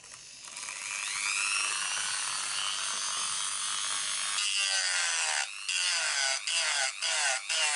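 Dremel rotary tool with a sanding drum spinning up with a rising whine, then grinding away the plastic of an RC car chassis. From about halfway through, its pitch sags over and over, about twice a second, as the drum is pressed into the plastic.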